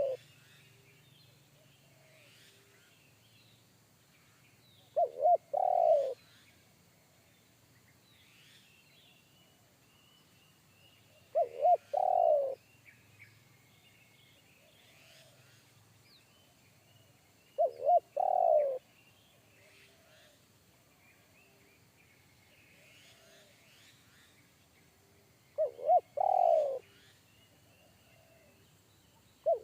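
Spotted dove (tekukur) cooing: each phrase is two short notes followed by a longer, falling coo, repeated four times about every six to seven seconds. Faint chirps of other small birds sound between the phrases.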